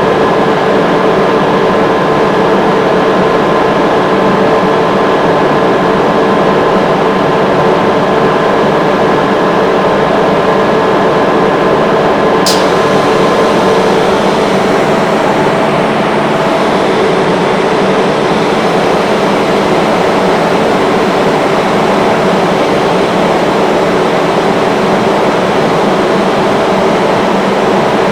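Ingersoll Rand 132 kW variable-frequency rotary screw air compressor running, a loud steady machine noise with a hum of several steady tones. Two higher whining tones drop out about halfway, and a single sharp click comes just before.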